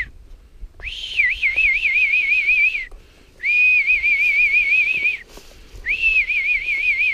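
A person whistling three long, warbling calls of about two seconds each, rising at the start and dropping at the end, a recall whistle to call a dog back.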